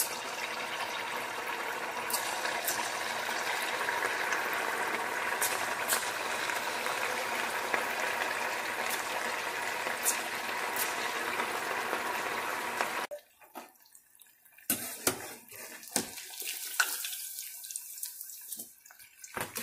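Potato and semolina balls deep-frying in hot oil in a stainless steel saucepan: a steady, dense sizzle that cuts off abruptly about two-thirds of the way through, giving way to quieter crackling and a few sharp clicks.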